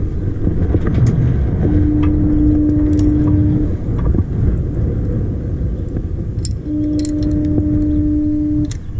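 Wind buffeting the microphone as a steady low rumble, with a steady horn-like tone sounding twice, about two seconds each and five seconds apart, and a few light clicks.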